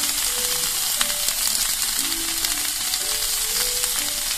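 Dashi-marinated bamboo shoot slices sizzling steadily in butter in a nonstick frying pan over a very low gas flame, with a few light clicks of chopsticks turning them.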